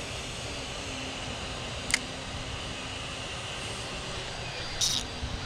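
Steady outdoor rumble on the action camera's microphone, with a single sharp click about two seconds in and a short run of clicks near the end as a spinning reel (Shimano Nasci 1000) is cast and its bail and handle worked.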